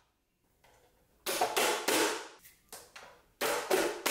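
A hand-pressed plastic vegetable chopper is being smacked shut, driving bell pepper pieces through its blade grid into the container below. Starting about a second in, it gives a series of sharp smacks, some in quick pairs, with lighter knocks between.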